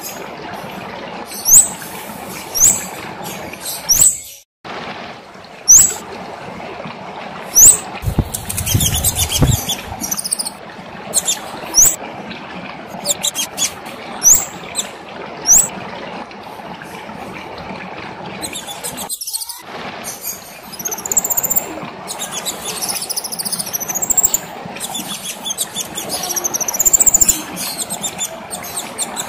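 A kemade, a small Indonesian cage songbird, singing vigorously: sharp, high, upward-flicking calls repeated every second or two, then a faster run of twittering notes in the second half. A short rustling noise comes about eight seconds in, and the sound cuts out briefly twice.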